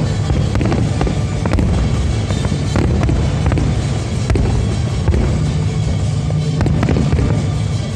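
Fireworks bursting in quick succession, a steady run of sharp bangs and cracks over a low rumble, with show music playing loudly underneath.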